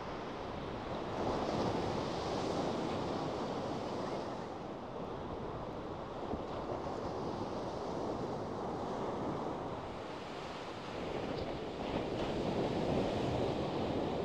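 Ocean surf washing onto the beach, swelling louder twice in long surges, with wind on the microphone.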